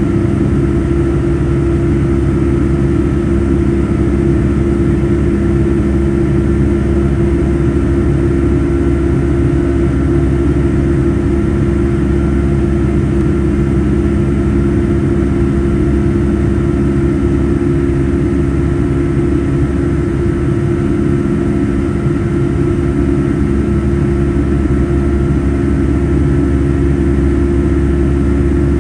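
Boeing 757-200 jet engines and airflow heard inside the passenger cabin in flight: a steady, loud drone with a deep rumble and a few constant hum tones.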